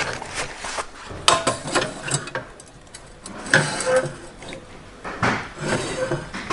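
Metal clanks and knocks as an aluminium casting mould is handled and pressed against the nozzle of a heated casting machine, several separate knocks with handling noise between them.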